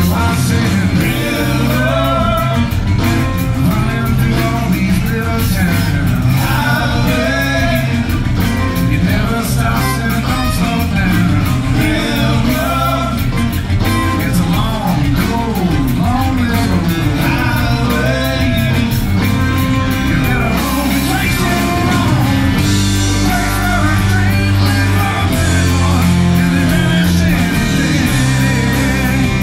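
Live band playing an Americana rock song: acoustic guitars, fiddle, electric bass, drums and keyboard, with a steady beat.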